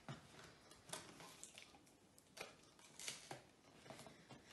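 Faint, irregular rustles and light taps of paper plates being handled while sellotape is pressed around their edges.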